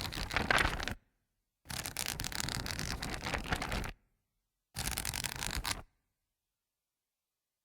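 Paper pages of a book being flipped through rapidly, a fast flutter of page flicks in three runs with short pauses between them; the sound cuts off about six seconds in.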